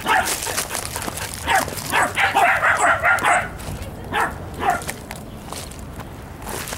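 Dogs barking in short sharp barks: one at the start, a quick run of barks in the middle, and a couple of single barks after it.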